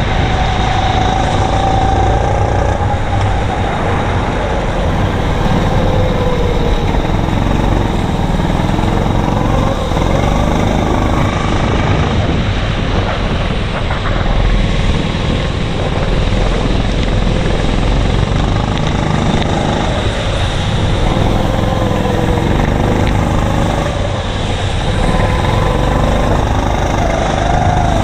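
Racing go-kart's engine heard close up from an onboard camera on the kart, running hard with its pitch rising and falling as it accelerates and slows through the corners, over a steady rushing noise.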